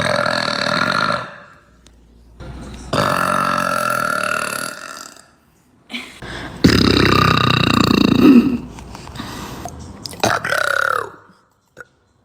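A girl burping: four long, drawn-out burps in a row with short pauses between them. The third, about seven seconds in, is the loudest.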